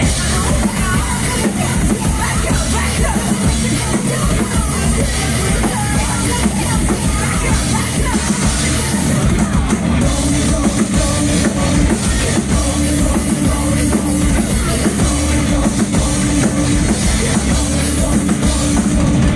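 Loud heavy rock music played at a live show, with a drum kit and singing over it.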